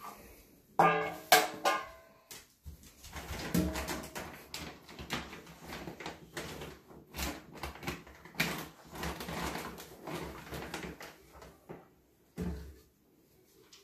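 Dry dog kibble rattling and clattering in a storage bin as a plastic scoop digs into it, in an irregular run of rattles through the middle of the stretch, with one knock near the end. A toddler gives a short cooing babble about a second in.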